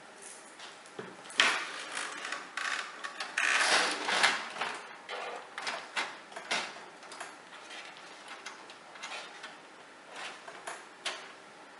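Knocks, clicks and scrapes of a computer power supply unit being handled and fitted into a computer case, with the loudest knocks and scraping about a second and a half in and around four seconds in.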